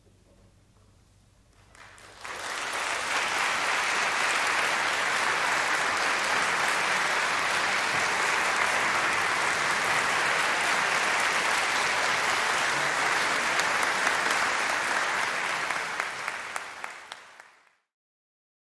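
About two seconds of near silence, then an audience breaks into applause. The clapping holds steady, thins to a few last claps and fades out near the end.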